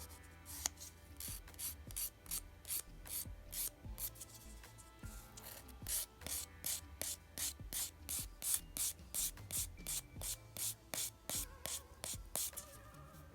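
A nail file rubbing back and forth over a hardened dip-powder nail in quick, even strokes, about two to three a second, getting stronger about halfway through. This is the smoothing of the activated, fully dried dip coat.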